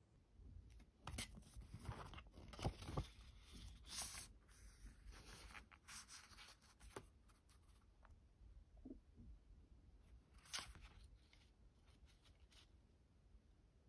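Quiet, irregular crinkling and tearing of packaging being handled, busiest in the first half, with one more burst about ten seconds in.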